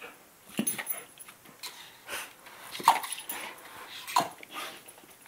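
A dog giving several short whimpers and yips, each brief and spaced a second or more apart.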